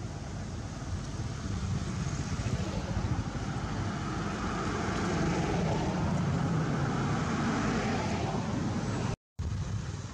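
Motor vehicle passing, its engine and road noise swelling to a peak over several seconds and then easing, above a steady outdoor rumble. The sound cuts out for a moment near the end.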